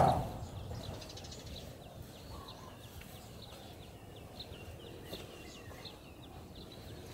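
A footstep thuds on the large steel pipe right at the start and rings briefly. After it, faint outdoor ambience, with a small bird calling a quick run of short high chirps through the middle.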